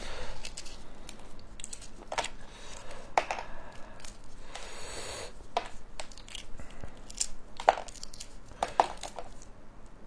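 Gloved hands handling and tearing food: light crinkling and rustling with scattered small clicks and taps, and a longer crinkle about halfway through.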